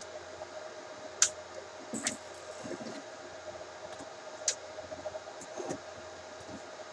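Dell PowerEdge 2950 server's fans running with a steady hum and a faint steady tone, broken by a handful of short clicks and knocks as hard-drive caddies are pushed into its bays, the sharpest about a second in.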